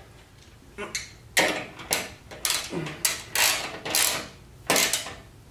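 Ratchet wrench clicking in repeated short strokes, about two a second from about a second in, as a 7/16 bolt is run down on a metal motorcycle backrest mounting bracket.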